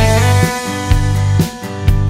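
Background music with guitar over a steady beat.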